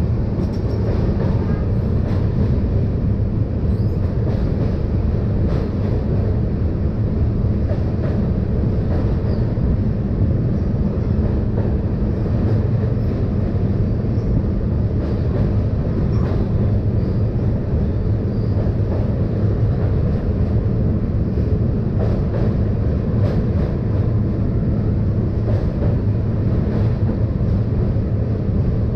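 Moving LHB passenger train: a steady, unbroken low rumble of the coaches running on the track.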